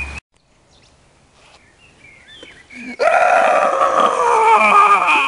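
A man's loud, drawn-out yell, starting about three seconds in and lasting about two and a half seconds before cutting off sharply. Fairly quiet with a few faint chirps before it.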